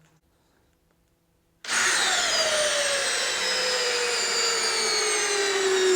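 DeWalt DCD709 compact cordless hammer drill driving an 8-inch timber lock screw, starting about a second and a half in. Its motor whine falls steadily in pitch as it slows under the load: the drill is labouring, only just managing to get the screw all the way in.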